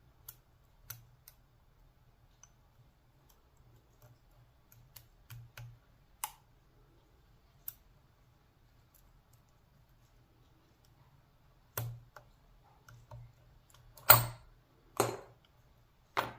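Single-pin picking of a steel round-body padlock: sparse faint clicks from the pick and tension wrench working the pins, then a few louder metallic clacks in the last few seconds as the lock comes open.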